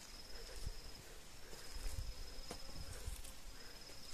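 Insects trilling in a steady, thin, high-pitched tone that drops out briefly about a second in, with a few faint ticks and low rumbles underneath.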